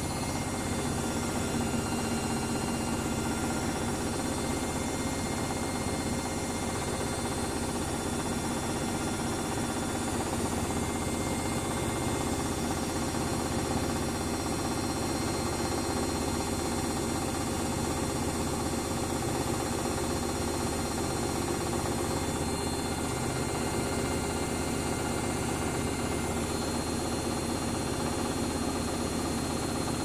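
Luxor WM 1042 front-loading washing machine in its spin cycle, running steadily at speed with an even hum of several steady tones. It is spinning an unbalanced load on its 1000 rpm spin.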